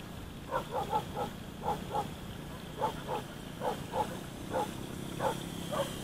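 An animal calling over and over in short croak-like calls, about two a second, over a steady low hum.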